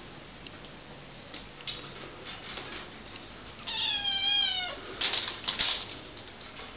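A kitten meows once, a single call of about a second a little past the middle. Right after it come a couple of brief scratchy noises.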